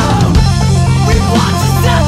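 Rock song played by a power trio, with guitar, bass and drums keeping a steady beat.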